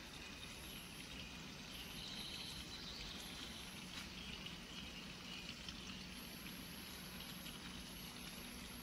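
Faint, steady hiss of water running from a garden hose left in a bed, with high-pitched insect calls coming and going.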